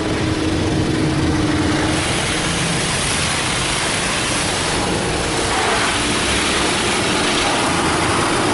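Automatic car wash rinse spraying water over the car, heard from inside the cabin: a loud, steady hiss of water that swells about two seconds in.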